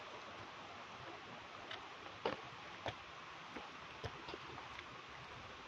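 Footsteps climbing wet concrete steps: a run of sharp clicks, the loudest a little over two seconds in, then lighter ones about every half second, over a steady hiss.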